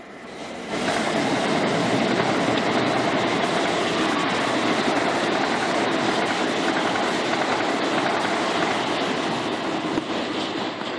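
Southern Class 377 Electrostar multiple-unit train passing close by at speed: a loud, steady running noise of wheels on rail with clickety-clack over the rail joints, building within the first second and easing a little near the end as the last coaches go by.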